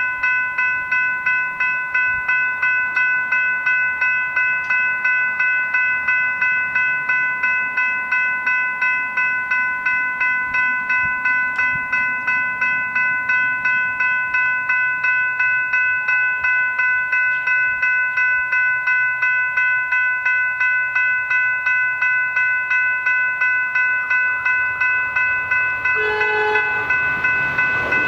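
Level-crossing electronic bells (General Signals Type 3 e-bells) ringing in a rapid, even strike, about three strokes a second, as the crossing warns of an approaching train. A train horn sounds briefly near the end, and the noise of the arriving train rises at the very end.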